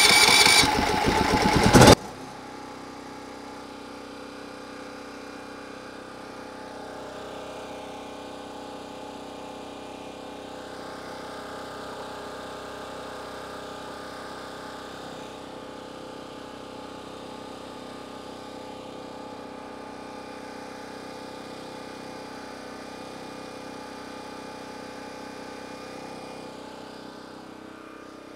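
Champion 3800-watt dual-fuel portable generator's single-cylinder four-stroke engine catching on the electric start and climbing up to speed over the first two seconds, then running steadily with no load. After about two seconds the sound turns abruptly quieter because the recording volume was lowered.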